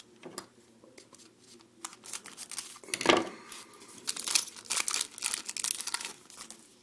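Trading card pack wrapper being torn open, with one loud tear about three seconds in followed by a run of crackling as the wrapper is pulled and crumpled.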